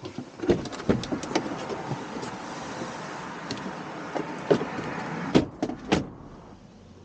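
Van noise: a steady rush with several sharp clunks of its doors, the last few near the end.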